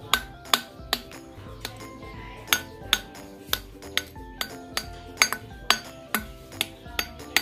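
The base of a glass bottle striking the metal crown cap of a second glass bottle, in sharp clinks about twice a second. The taps are worked around the cap's rim to bend the crimps outward and loosen the cap.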